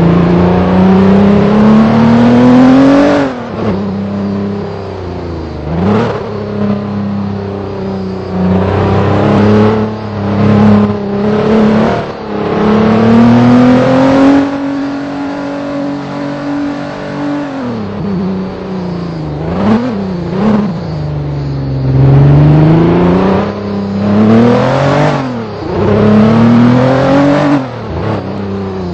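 A vehicle's engine being driven hard. It revs up and eases off over and over, its pitch climbing and then dropping sharply several times, with a longer stretch held high about halfway through.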